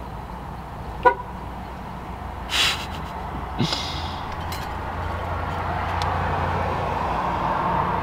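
Nissan 370Z's car horn sounding steadily, swelling in about halfway through and holding on. The yellow horn wire on the quick-release hub is touching the ground ring and setting the horn off. Before it there is a sharp click about a second in and two short rustles.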